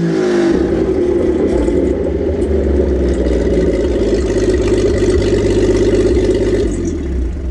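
Talbot-Lago Grand Sport straight-six engine running on a test stand. It drops back from a rev at the start, runs steadily, and fades away at the very end.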